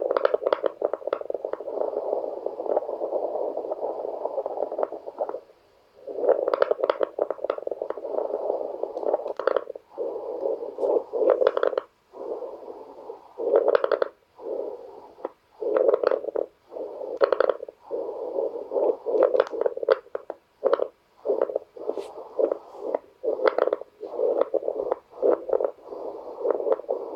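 Lung sounds through an amplified electronic stethoscope over the right subaxillary chest in pulmonary fibrosis: a rushing breath sound shot through with many fine crackles, the late inspiratory crackles typical of fibrotic lung. A long stretch of breathing comes first, then shorter breaths with brief pauses between them.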